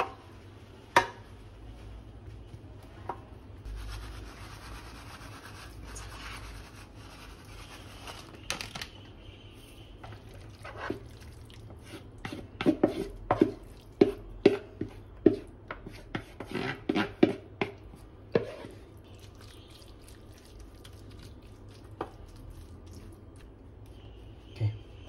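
A spoon scraping and knocking against a bowl as a shredded crab stick topping is scooped out onto rice, in a quick run of clicks and taps lasting several seconds. There are a few single knocks before it, and a stretch of soft rustling hiss earlier on.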